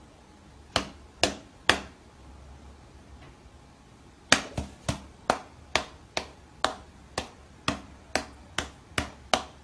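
A cat's paw patting a person's hand in quick light slaps: three sharp taps about half a second apart, then after a pause a run of about a dozen more at roughly two a second.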